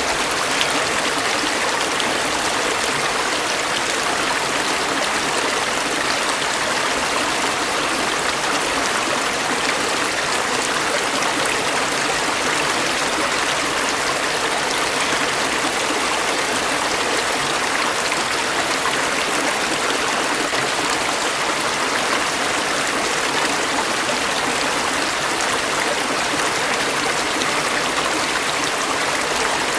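Stream water running and babbling over stones in a steady, unbroken rush.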